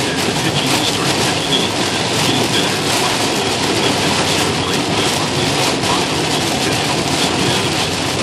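Heavy rain in a thunderstorm, a steady loud downpour with a dense patter of drops.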